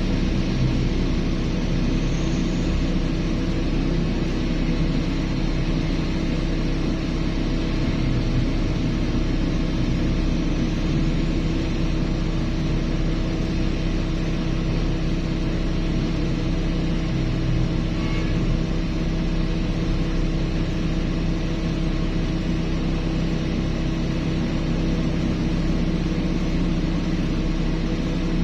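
Large diesel engines of mining excavators and haul trucks running steadily under load, a constant low drone with a steady hum of tones.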